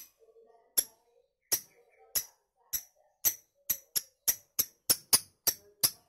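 Caged lovebird's 'ngekek' laughing call: a run of about a dozen sharp, shrill notes that come faster and faster, from about one every 0.7 seconds to three a second.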